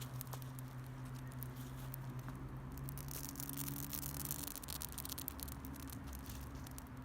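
Wood campfire crackling, with many small sharp pops and ticks scattered throughout, over a steady low hum.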